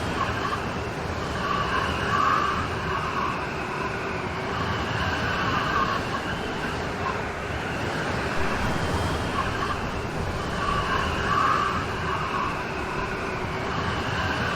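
Steady rain storm: a dense, even hiss of rain with slow swells in it.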